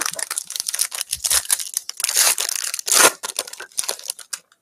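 The wrapper of a Panini Infinity football card box being torn open and crinkled: a dense crackling that is loudest about two to three seconds in and stops just before the end.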